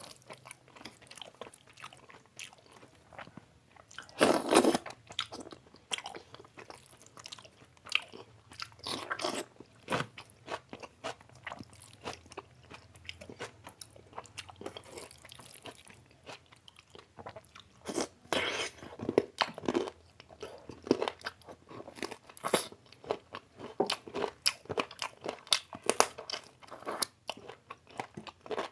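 A person chewing and biting into chicken biryani close to the microphone. Frequent short crunches and mouth clicks come in irregular clusters, the loudest burst about four seconds in.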